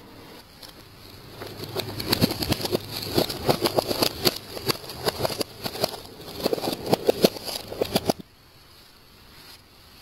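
Car tyre rolling over and crushing a row of small brittle objects: a long run of many sharp cracks and crunches that stops abruptly near the end.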